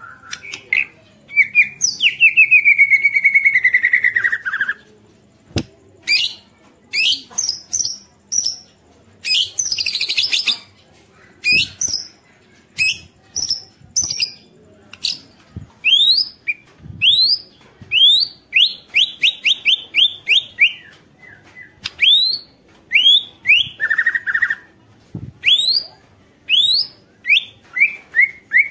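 White-rumped shama singing in full song: a fast, varied run of short whistled notes and rising sweeps, with a long falling whistle a few seconds in and a harsh rattling phrase about ten seconds in.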